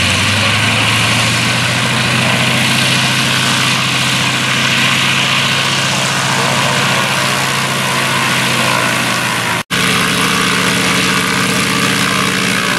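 Stinson Reliant's nine-cylinder radial engine and propeller running steadily at low power as the aircraft taxis on grass. The sound breaks off for an instant about ten seconds in and resumes at a slightly different pitch.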